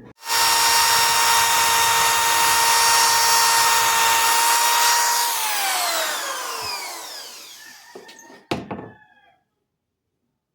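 Power tool fitted with a small wire wheel starts up and runs at a steady high whine, the wire brush scrubbing powder coat off an aluminium motorcycle subframe. About five seconds in it is let off and spins down with a falling whine, followed by a short knock.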